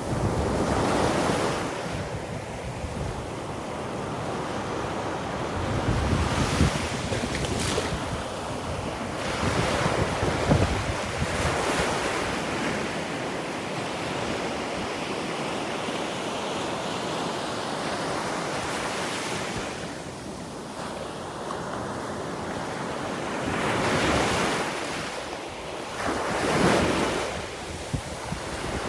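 Ocean surf: waves breaking and washing on a beach in repeated swells every few seconds, with wind buffeting the microphone.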